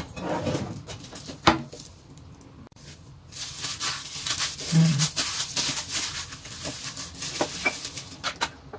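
Gloved hand squishing and working soft bread dough in a stainless steel bowl, with plastic-glove rustle and a few sharp knocks against the bowl. The risen yeast dough is being punched down to let out its gas.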